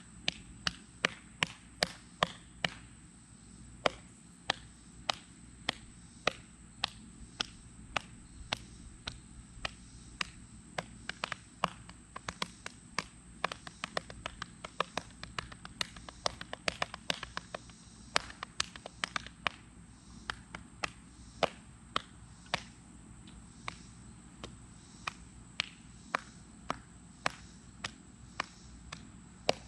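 Repeated sharp taps, irregular, mostly one or two a second with a few quick runs in the middle, over a faint steady high-pitched tone.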